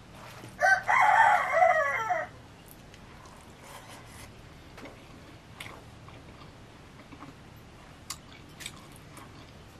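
A rooster crowing once, starting about half a second in and lasting about a second and a half, its call dropping in pitch at the end. After it, only a few faint clicks.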